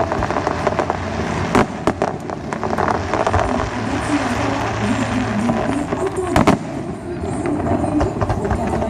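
Aerial fireworks bursting and crackling over a steady rumble, heard from across a river. Two loud bangs stand out, one about a second and a half in and one about six and a half seconds in.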